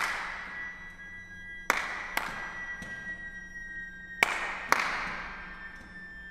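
Contemporary chamber music with live electronics: five sharp percussive strikes, the last four in two pairs about half a second apart, each fading off over about a second, over held high steady tones and a low hum.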